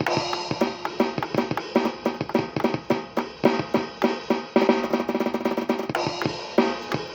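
Drum kit played freely: a busy stream of snare, tom and bass drum hits, breaking into a fast, even roll about two-thirds of the way through.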